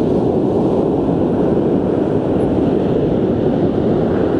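Strong wind buffeting the microphone over the steady rush of surf breaking on the beach: an even, rough rumble.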